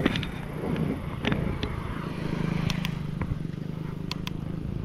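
Wind and road rumble from a bicycle riding along a paved road, with several sharp clicks and rattles from the bike. A steady low hum joins in a little over two seconds in.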